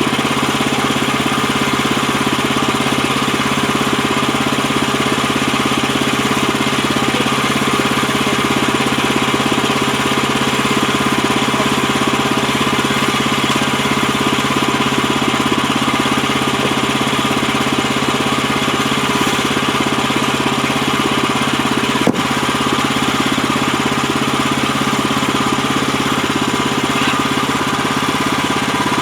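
Gas engine of an HM130max portable bandsaw sawmill running steadily, with one brief click about two-thirds of the way through.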